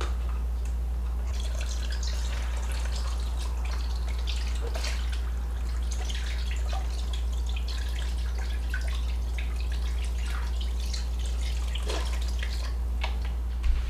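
Chicken broth poured from a carton into a slow cooker's crock, splashing and trickling onto the chicken and vegetables inside, over a steady low hum.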